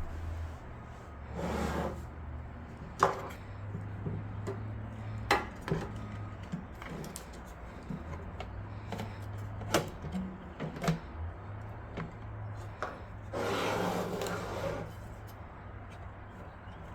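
Hardware being handled while a motherboard is fitted into a PC case: scattered sharp clicks and knocks, with two brief scraping rubs, one near the start and a longer one near the end, over a low steady hum.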